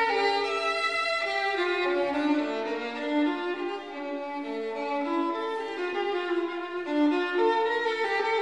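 Background music led by a violin playing a melody of held notes.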